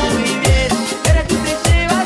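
Retro cumbia dance music with a steady low drum beat about twice a second under a melody line.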